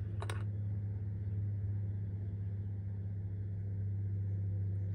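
Steady low machine hum, with a single short metallic clink of hand tools being handled in a metal tackle box about a quarter second in.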